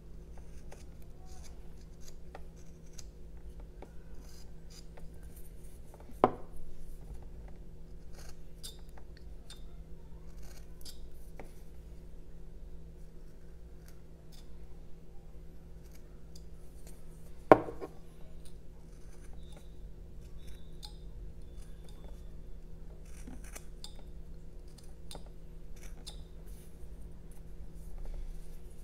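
Carving knife whittling a block of jelutong wood: a string of short slicing and scraping cuts. Two sharper knocks stand out, about six seconds in and again about eighteen seconds in.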